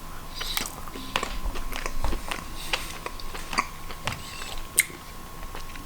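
Close-up chewing of a tender chicken cube from ready-made noodles, with small wet clicks and smacks of the mouth. A faint steady tone sits underneath.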